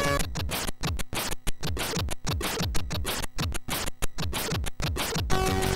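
Commodore 64 SID-chip demo music in a break of rapid noise hits and quick falling pitch sweeps, a scratch-like drum passage, until steady synth tones of the melody come back about five seconds in.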